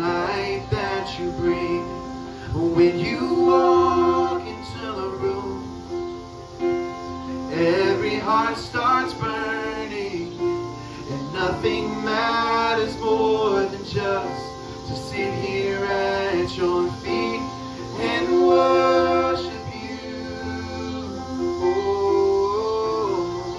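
Worship song from a church service: voices singing over guitar accompaniment, with sustained instrument notes underneath.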